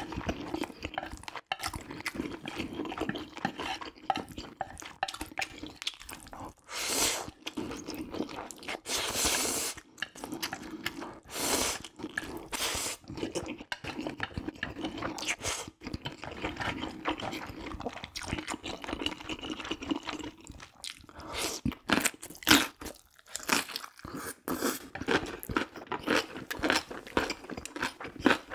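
Close-miked eating of jjajang ramyun noodles with beef topping: steady chewing with wet clicks and smacks, broken a few times by louder noisy bursts lasting about a second.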